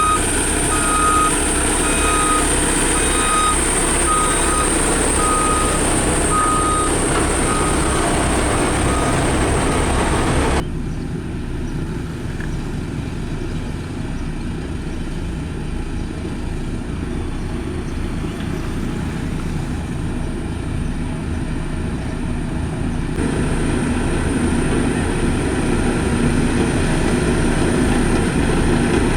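Diesel engines of heavy road-construction machines running, with a reversing alarm beeping about once a second over the first several seconds. About a third of the way in the sound switches abruptly to a quieter, deeper engine note, and switches back to the brighter engine sound near the end.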